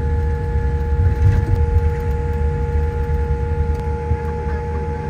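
Cabin noise inside a Boeing 787 taxiing at idle: a steady low rumble with several steady whining tones from the jet engines and aircraft systems.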